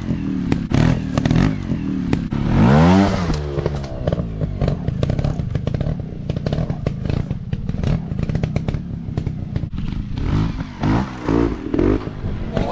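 Trail motorcycle engine running and revving: one sharp rev that rises and falls about three seconds in, and short throttle blips near the end. Many sharp clattering knocks are heard throughout.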